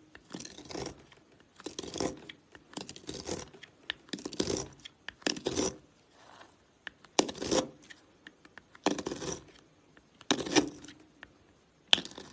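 A blade cutting through soap in repeated short crunching, scraping strokes, about one every second or so, with quiet gaps between them.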